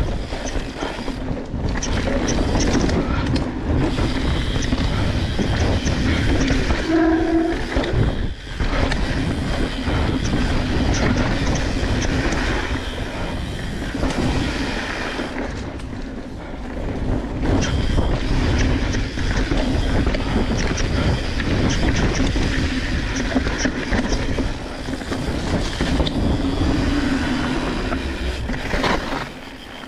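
Mountain bike descending a dirt trail: tyres rolling over dirt and rocks, with the bike rattling and clattering over the bumps, steady with a few brief lulls.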